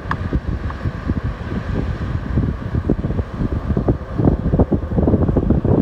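Wind buffeting the microphone outdoors: an uneven, gusty low rumble that swells a little louder in the second half.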